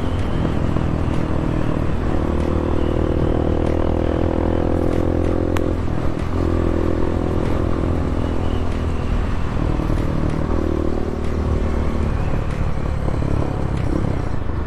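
Bashan 250 dirt bike engine running while riding along the road, with wind noise on the microphone. The engine note drops out briefly a few times, about two, six and ten seconds in, then picks up again.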